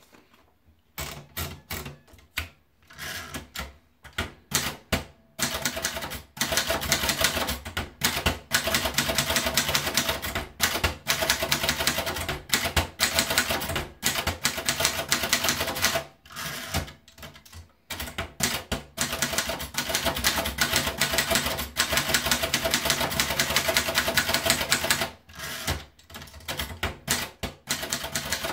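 Remington Sperry Rand Monarch 2 typewriter being typed on: a few scattered key strikes at first, then fast, continuous clattering of the typebars. There is a short pause about halfway through, and the strokes thin out again near the end.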